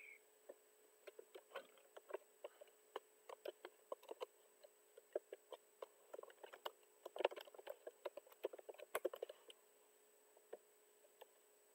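Computer keyboard typing: faint, irregular key clicks in quick runs, densest shortly before they stop about nine and a half seconds in, followed by a single click near the end.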